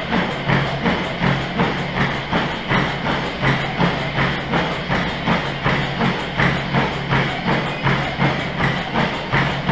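Running footfalls striking a NordicTrack treadmill's moving belt in a quick, even rhythm, about three a second, over a steady low hum.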